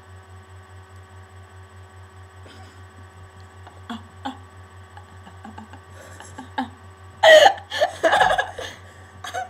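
Two girls laughing, with a few soft giggles from about four seconds in and loud laughter starting about seven seconds in, over a steady electrical hum.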